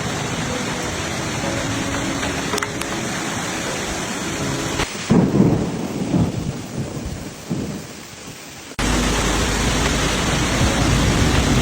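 Steady rain in a thunderstorm, with a rolling rumble of thunder that swells about five seconds in and fades over a few seconds. Near the end it switches abruptly to a heavier, even downpour with a low rumble beneath it.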